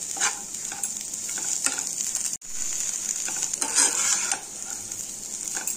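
Poha sizzling in a frying pan on low flame while a spatula stirs it, with irregular scraping strokes against the pan over a steady high hiss. The sound cuts out for an instant about halfway through.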